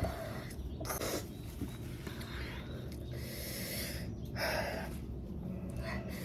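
A person breathing hard and sniffing, several noisy breaths and snorts a second or two apart, in reaction to the burn of an extremely hot chili chip.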